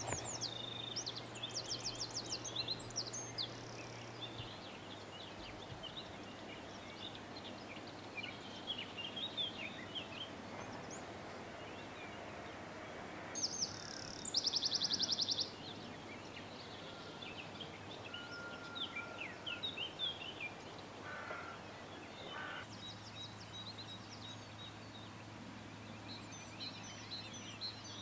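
Outdoor ambience of songbirds chirping and singing, with one loud, fast trill of evenly spaced notes about halfway through.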